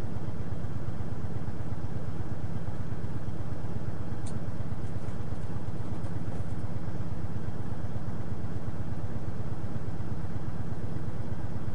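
Parked truck's diesel engine idling steadily, heard from inside the cab, with a faint click about four seconds in.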